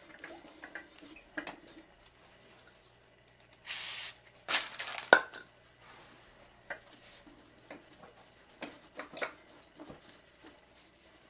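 Handling noise from a small mower tyre being worked on its rim on a mini tyre changer: scattered rubs and clicks, a short scrape about four seconds in, then a louder scrape ending in a sharp metallic clack about five seconds in.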